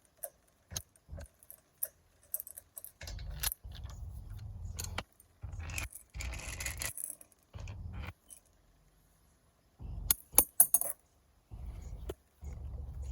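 Loose metal clinking and clattering, with dull knocks and a short rasp, from lug nuts and hand tools being worked as a car wheel is taken off.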